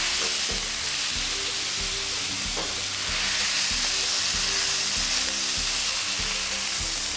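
Burger patties sizzling loudly on a hot flat-top griddle as they are pressed flat with a burger smasher, a steady frying hiss. A few light clicks and scrapes of the smasher and metal spatula on the griddle.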